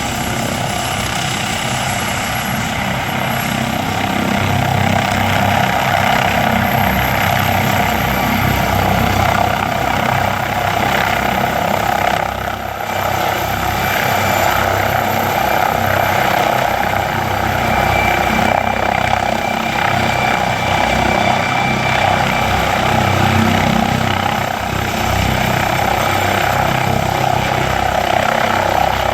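MD900 Explorer twin-turbine helicopter running loud and steady, with a rhythmic beat from the rotor. A thin, high turbine whine climbs in pitch over the first ten seconds or so.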